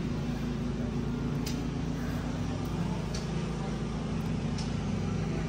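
Steady low drone of an engine running at an even speed, with a few faint ticks over it.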